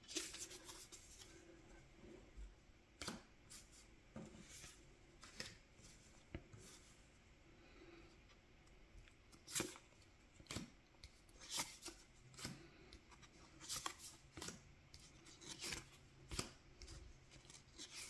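Foil trading cards being flipped through by hand, each card slid against the next with a faint, brief swish or snap, unevenly about once a second.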